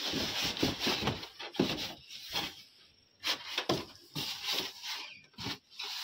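A washing machine's polystyrene foam packing insert being lifted out of its cardboard box, rubbing and knocking against the cardboard in a run of irregular scrapes, with a short lull a little past halfway.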